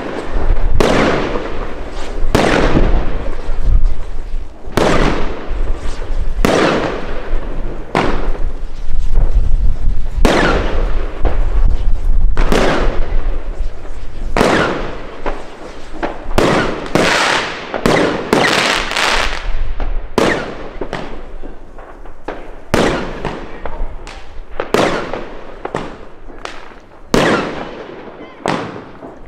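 Pangu Brazilian Box consumer firework cake firing through its shots in sequence: sharp bangs, about one a second, each with an echoing tail. The bangs grow somewhat quieter after about twenty seconds.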